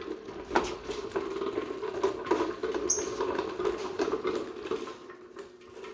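Garden Mark push reel lawn mower being pushed back and forth, its reel blades spinning with a fast, steady whir and quick clicking. The mower is a little dried out and could use some oil.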